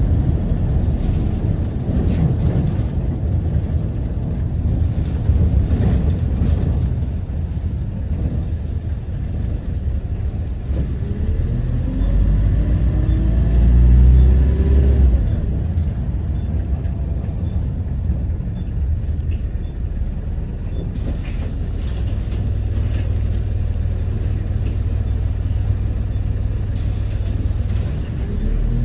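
Optare Solo Versa bus running, heard from on board: a steady low engine rumble with a whine that rises in pitch about 11 to 15 seconds in as the bus pulls away, the 'hoover' whine this bus type is known for. A hiss like a brake release comes in later on.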